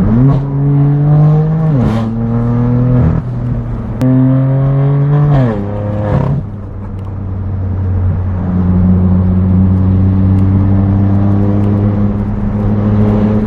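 BMW M4 F82's twin-turbo straight-six through a straight-piped AWE track exhaust, accelerating hard: the pitch climbs and drops sharply at each upshift, about three times in the first six seconds, with sharp cracks around the shifts. It then settles into a steady, lower cruising note.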